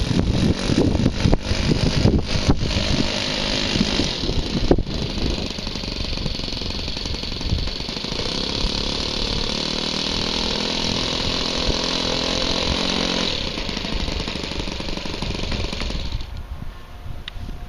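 Hangar 9 Saratoga RC plane's engine running at low throttle as the plane taxis on grass. The engine note drops away suddenly near the end.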